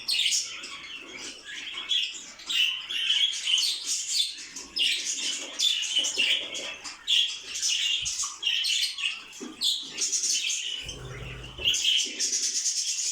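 Many caged songbirds chirping and twittering together in a dense chatter of short high calls. A brief low rumble comes about eleven seconds in.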